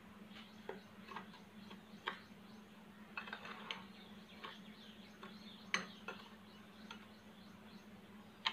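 Metal spoon stirring ground fried macaroni and sugar in a glass bowl: faint scraping with scattered light clinks against the glass, one louder clink about six seconds in. A low steady hum runs underneath.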